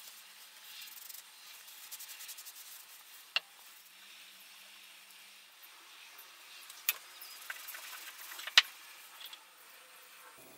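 Cloth rag rubbing over a wooden saw handle, soft repeated strokes in the first few seconds, working colour and finish into the wood. Several sharp clicks follow from the handle and its metal bolt being handled, the loudest one about eight and a half seconds in.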